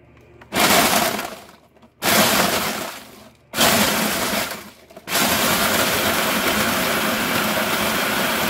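Food processor pulsed three times in short bursts, then run steadily, chopping a full bowl of cream-filled vanilla sandwich cookies into crumbs. The cookies crunch and rattle against the blade.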